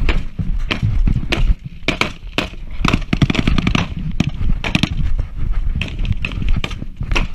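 Gunfire in a firefight: many rifle shots cracking at irregular intervals, several a second at times, with a dense cluster about three seconds in.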